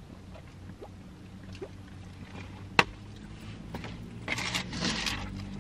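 A steady low hum in a car cabin. About three seconds in, a drink cup is set down on a wooden tray with a single sharp click. Near the end comes about a second of rustling as food is handled.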